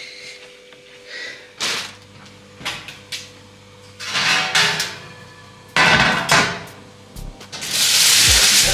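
Kitchen handling sounds: a cloth wiping a glass-ceramic hob in short strokes, then metal baking trays handled and knocked down on the counter. A loud rustle near the end.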